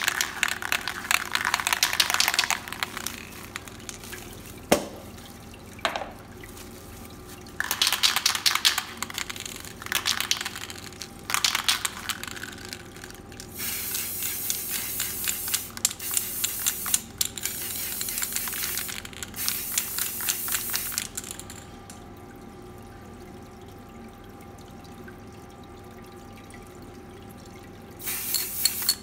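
Aerosol spray paint can hissing in repeated bursts as fluorescent yellow paint is sprayed onto a test panel, with the longest stretch of spraying in the middle and a last short burst near the end. Under it runs the steady splash of water falling down a water-curtain spray booth's back wall, and a couple of sharp knocks come between bursts.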